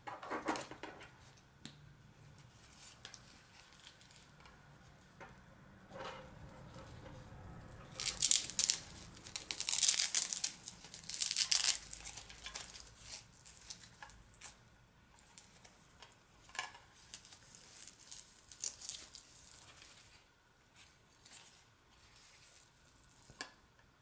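Velcro (hook-and-loop) strap ripped open in a few loud pulls partway through, amid quieter clicks and rustles of a small plastic suction cup and metal carabiner being handled.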